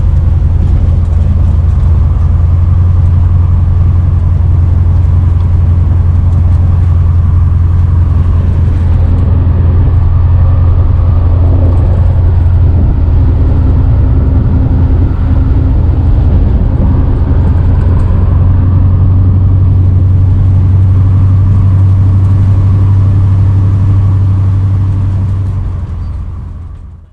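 1986 Chevy C30 dually's 6.0-liter LS V8 pulling the truck along the road, heard from inside the cab as a steady low drone. Its exhaust runs only to the mufflers with no tailpipes, so it runs louder than normal. The sound fades out near the end.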